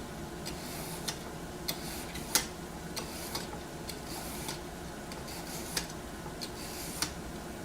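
A cooking utensil clicking and tapping against a frying pan at irregular intervals, about ten times, as shredded carrots are stirred into browned ground chicken, over a faint sizzle.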